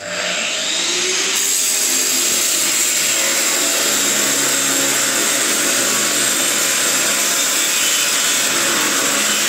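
Large electric meat-and-bone grinder running, loud and steady, grinding raw bones and meat trimmings into mince. It cuts in suddenly at the start.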